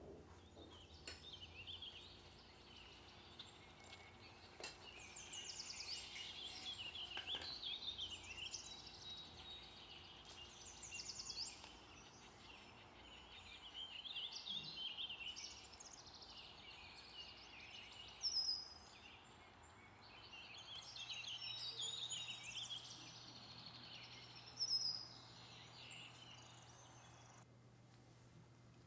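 Faint chirping and twittering of small birds in repeated bursts, with two short louder calls.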